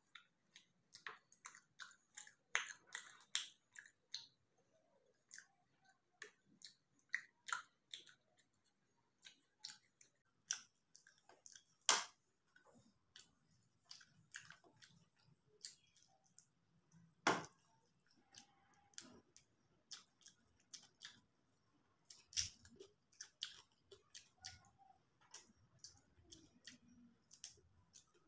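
Close-miked chewing of a mouthful of fish curry and rice, with irregular wet mouth clicks and smacks throughout; two clicks, about twelve and seventeen seconds in, are much louder than the rest.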